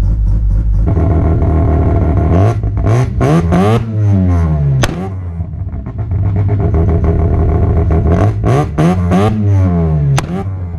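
Built, street-ported, carbureted 13B two-rotor rotary engine in a Toyota pickup, heard from the exhaust. It idles, then is blipped in two bursts of quick revs, the pitch swooping up and down, with a steady stretch between them. Two single sharp cracks come from the exhaust, one about halfway through and one near the end.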